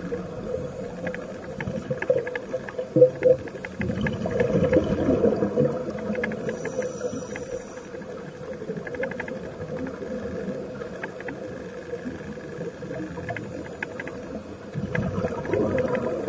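Underwater sound of scuba divers breathing through regulators: bubbling exhalations over a low steady rumble, with scattered faint clicks. The bubbling swells louder about four seconds in and again near the end.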